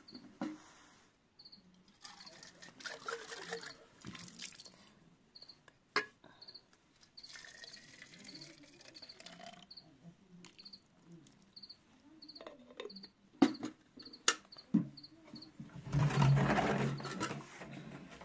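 Water poured from an aluminium kettle into a small plastic bottle, the gurgle rising in pitch as the bottle fills, with sharp clicks as the plastic and the kettle lid are handled. Near the end a louder rush of water as a plastic jerrycan is tipped. Crickets chirp throughout in short, evenly repeated high pips.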